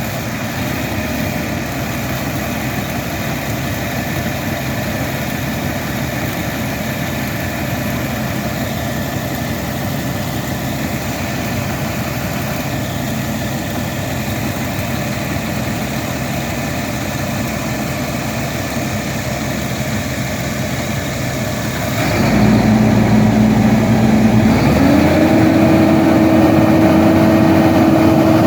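A heavy machine's engine idles steadily. About 22 seconds in it gets louder and takes on a steady whine, which steps up to a higher pitch about three seconds later and holds, as the machine is put to work.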